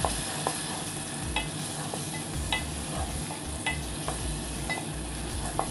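Chopped tomatoes sizzling as they fry in hot desi ghee while a wooden spatula stirs them around a metal pot, with a few light taps and scrapes of the spatula against the pot.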